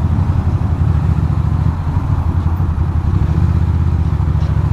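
Ducati Monster's V-twin engine running steadily at low revs, with no revving.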